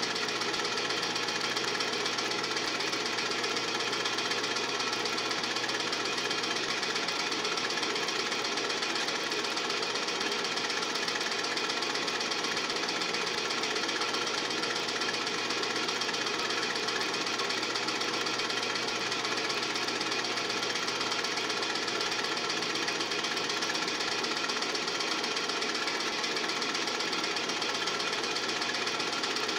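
Film projector running: a steady, rapid mechanical clatter that keeps an even level throughout.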